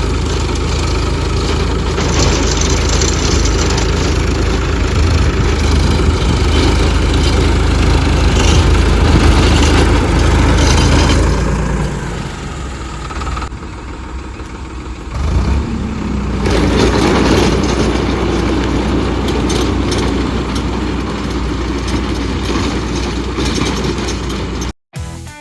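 Tractor engine running steadily. The sound drops about twelve seconds in and picks up again with a rising pitch around fifteen seconds in.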